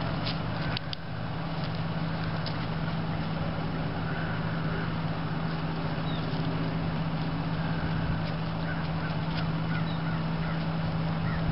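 Steady outdoor background noise with a constant low hum, and faint short bird calls near the end.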